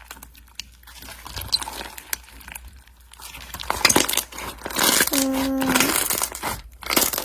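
Slime being worked by hand, making crinkly, crackling clicks and pops. It gets louder about four seconds in.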